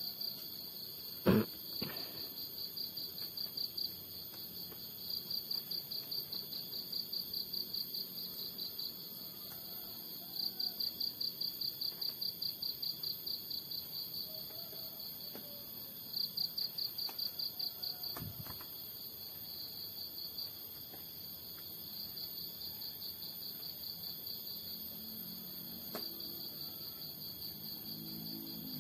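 Insects chirping in trains of rapid, even pulses, about eight a second, that start and stop, over a steady very high whine. A sharp thump about a second in, and a softer one about two-thirds of the way through.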